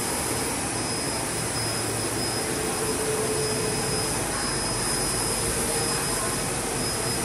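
Flatbed inkjet printer running as its print carriage travels over the bed: a steady machine hiss with a thin high whine over it.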